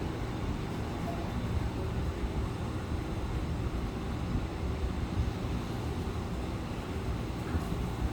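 Wind buffeting the microphone outdoors, a steady low rumble that wavers irregularly, over a general hiss of open-air noise.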